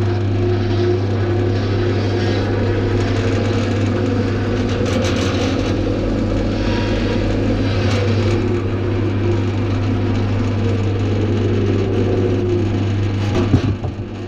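Clarke CWL1000CF variable-speed wood lathe running with no workpiece, its motor being turned up from the slowest setting: a steady electric motor hum with a faint whine. A sharp knock near the end, after which the sound drops.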